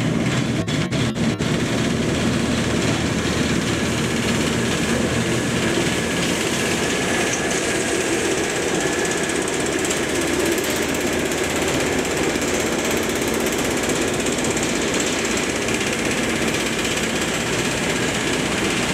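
Class 09 diesel shunter's English Electric six-cylinder diesel engine running steadily as the locomotive passes close by at low speed, with a few clicks in the first second or so.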